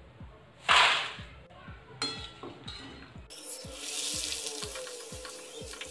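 Maize poha (corn flakes) deep-frying in hot oil in a kadai. A short loud burst of sizzling comes about a second in as the flakes go into the oil, then a steady hissing sizzle starts suddenly about three seconds in.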